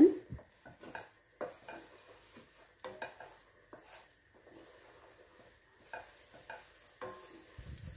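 Wooden spoon stirring vermicelli frying in melted butter in a stainless steel pot: irregular scrapes and light knocks of the spoon against the pot over a faint sizzle. The stirring is kept continuous so the vermicelli browns without burning.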